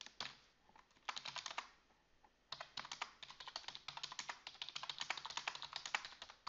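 Typing on a computer keyboard: a short run of keystrokes about a second in, then a brief pause, then steady typing from about two and a half seconds on.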